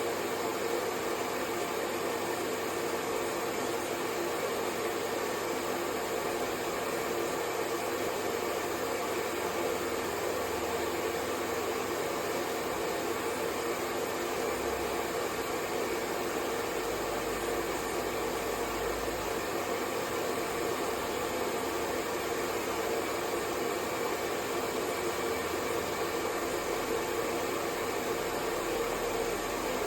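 Hair dryer running continuously: a steady, even blowing noise with a low hum in it, unchanging throughout.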